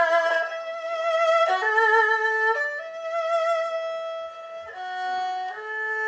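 Erhu played solo with the bow: a melody of long held notes with vibrato, moving to a new pitch every second or two.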